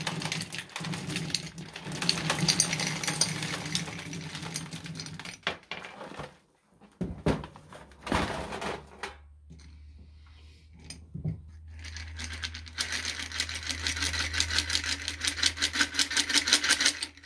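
Small hard candies pouring out of a large metal tin into a glass mason jar, a dense clattering rattle for about six seconds. A couple of knocks follow as the tin is set down. Near the end the candy-filled glass jar is shaken, a fast even rattle that settles the candies so more will fit.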